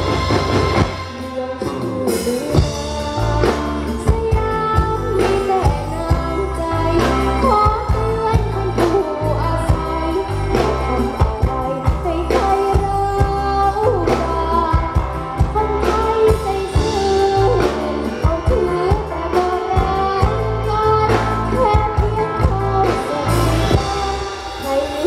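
Band music with a singer: a luk thung song over a steady bass line and regular drum beats.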